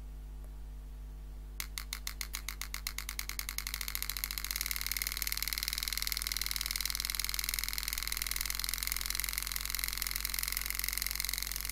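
Super EZ graver handpiece hammering a 98-degree carbide graver into 304 stainless steel: a fast, even train of metallic strikes that starts about a second and a half in, speeds up over the next couple of seconds, then runs steadily. A low electrical hum runs underneath.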